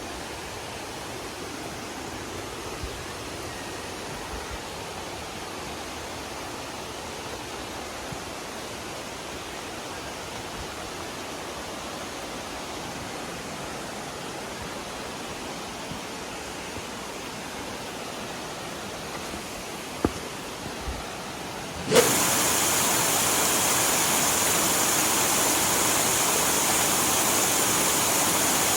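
Steady rushing of falling water. About 22 seconds in it jumps suddenly to a louder, hissier rush, just after a short knock.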